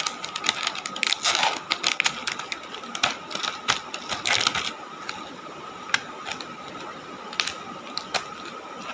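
Gift packaging and wrappers being handled: a run of irregular crinkles and small clicks, with a few sharper ones scattered through.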